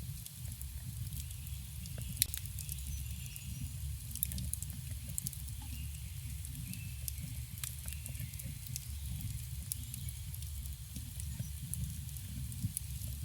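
Campfire burning: wood crackling with frequent sharp pops over a steady low rumble of the flames, one pop louder about two seconds in.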